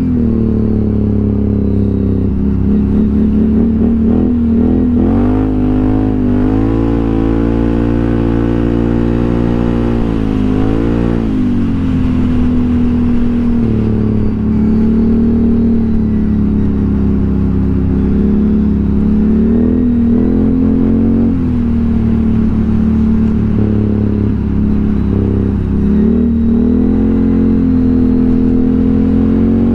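ATV engine running while riding, its revs rising and falling several times, over a steady low rumble.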